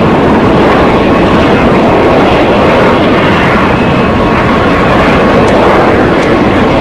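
Jet engines of a landing Boeing 727, a loud steady rushing noise.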